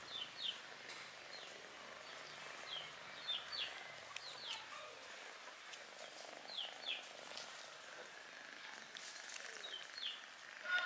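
A small bird chirping: short, high, falling notes, often in quick pairs, repeated every second or two over a faint steady outdoor hiss.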